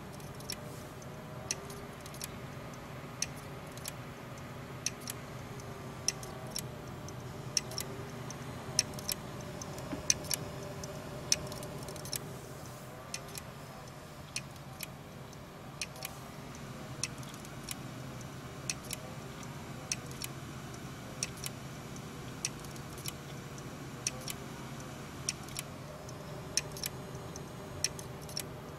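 Seagate 1.5 TB hard drive clicking repeatedly, sharp irregular clicks about one or two a second over a steady low hum. This kind of repeated clicking is typical of a failing drive whose read/write heads cannot read the platters.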